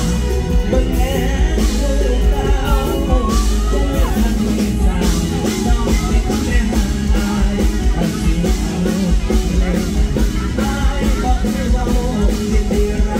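Live band music played through a PA: a singer over drum kit and band, with a steady beat.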